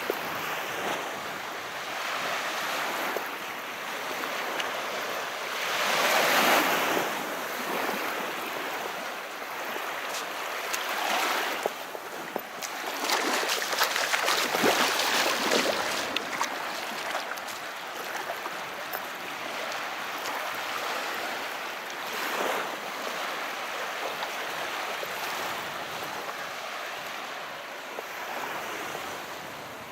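Calm sea waves washing in, a steady rush of surf that swells loudest about six seconds in and again from about twelve to sixteen seconds in, with a crackling fizz at the peaks.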